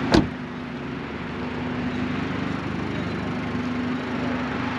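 Volkswagen Mk7 Jetta's turbocharged engine idling steadily, still warming up after a cold start, with a sharp thump just after the start.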